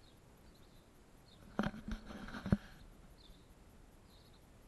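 A few dull knocks with a brief scuffing rustle between them, about one and a half to two and a half seconds in; the last knock is the loudest. Faint, short bird chirps come and go in the background.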